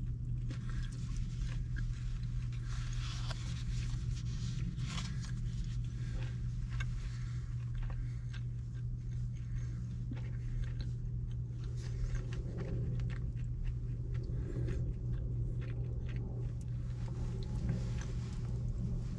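A person chewing food, with a plastic fork clicking and scraping in a plastic takeout bowl, over a steady low hum.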